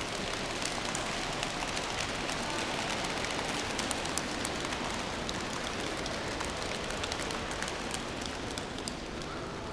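Dense, even patter of many small taps and scuffs from a group of people on a marble floor, easing slightly near the end.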